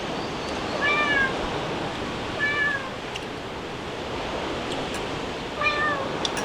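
A cat meowing three times, short meows that rise and fall in pitch, over a steady background hiss.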